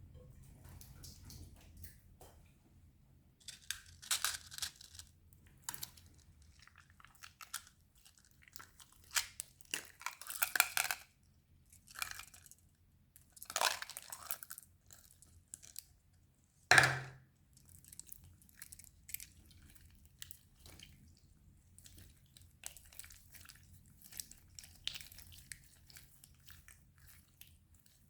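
Slime being squished, stretched and mixed by hand, giving irregular bursts of sticky crackling with pauses between them. One short, sharp snap about seventeen seconds in is the loudest sound.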